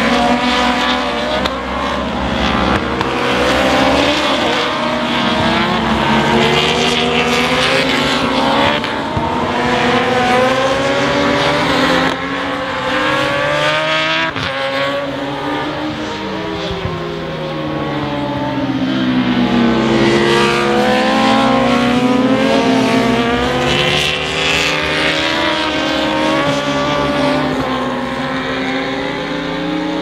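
Several racing motorcycles passing at speed, their engines overlapping, with the pitch falling and rising through gear changes, braking and acceleration. One clear drop and climb in pitch comes a little past the middle.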